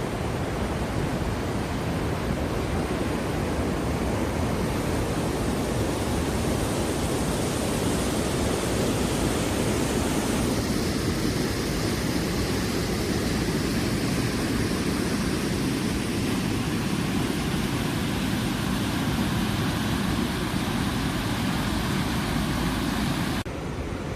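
Steady rush of river water through a rocky gorge. It shifts in tone about ten seconds in and drops suddenly in level near the end.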